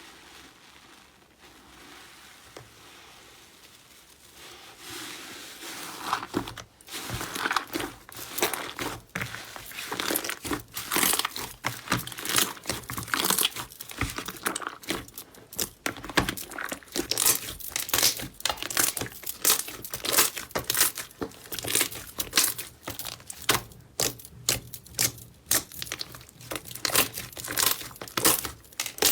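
Slime being squeezed, stretched and poked by hand, giving a dense run of wet crackles, clicks and pops. It is soft for the first few seconds and grows louder and busier from about six seconds in.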